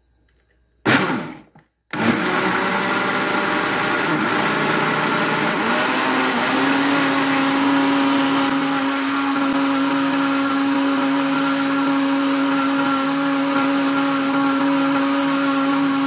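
Britânia BLQ970 countertop blender blending a liquid batter of eggs, butter, sugar and warm water: a short burst about a second in, then it runs steadily, its motor tone stepping up slightly about six seconds in.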